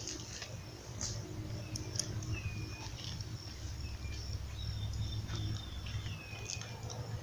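Birds calling: a few short high whistles, some falling in pitch, and scattered quick chirps, over a low steady rumble.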